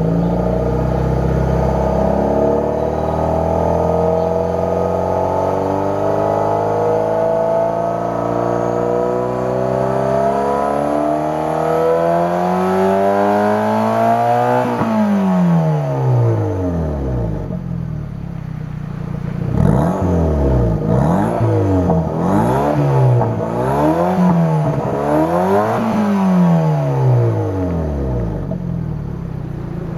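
Daihatsu Copen L880K's 660 cc turbocharged four-cylinder engine, heard through a SACLAM aftermarket silencer kit. It is revved slowly and steadily up toward its 7000 rpm limit over about fifteen seconds, then drops back to idle. Around twenty seconds in come about five quick throttle blips, and it settles back to a steady idle near the end.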